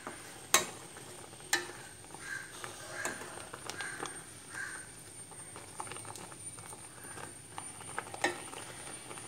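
A steel spoon stirring cooked green papaya and curd in a metal pan, with soft wet scraping and a few sharp clinks of the spoon against the pan: about half a second in, again a second later, and near the end.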